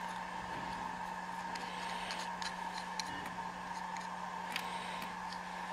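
Steady electrical hum with a few faint, small clicks of plastic servo parts and a metal tool being handled.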